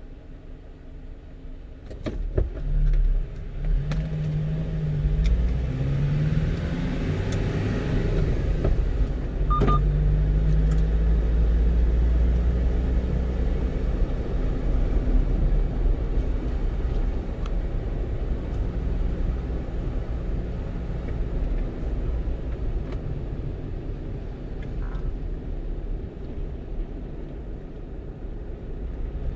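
A 1-ton truck's engine and road rumble heard from inside the cab: the vehicle pulls away about two seconds in, the engine note rising in steps as it accelerates through the gears, then it settles into a steady cruise. A short click with a brief tone comes about ten seconds in.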